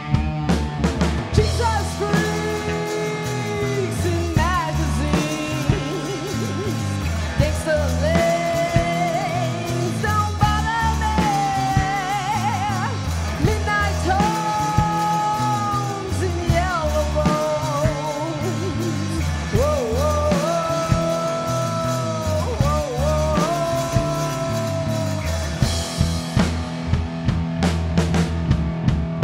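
Three-piece rock band playing live: electric guitar, bass guitar and drum kit, with a lead melody that bends and wavers in pitch above them. Cymbals wash brighter near the end.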